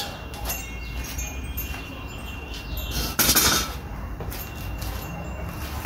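Cast iron grill grate clinking with a light metallic ringing as it is handled, then one louder clank just after three seconds in as it is set down.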